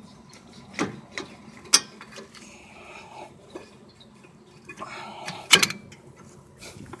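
Metal hand tools clicking and scraping against a brake caliper as seized, rusted slide pins are worked loose, with several sharp metallic clicks and two short stretches of scraping.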